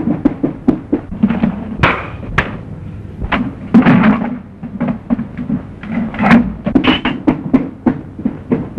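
Fistfight: a rapid run of knocks and thuds of blows and bodies hitting things, several a second, with scuffling between them.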